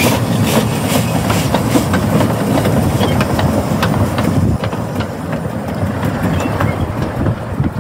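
Narrow-gauge steam locomotive pulling past, chuffing at about two to three beats a second, with steam hissing from its open cylinder drain cocks. About four and a half seconds in the chuffing drops away, leaving a lighter clicking of wheels on the track.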